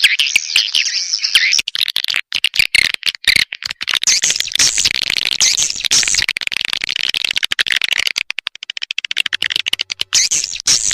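Recorded swiftlet calls (walet), dense twittering chirps mixed with rapid clicking, looped as a lure call to draw edible-nest swiftlets into a swiftlet house.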